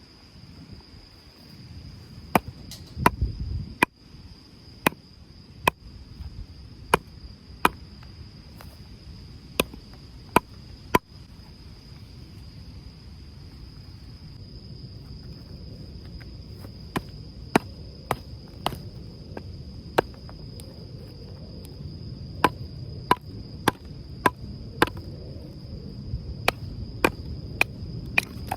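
A series of sharp knocks, about two dozen, spaced irregularly roughly a second apart, over the steady high trill of crickets and a low rumble of wind.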